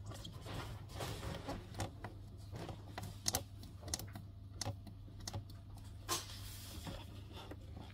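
Irregular clicks and taps from a Roca Laura Plus boiler control panel being handled and its buttons pressed, over a steady low hum.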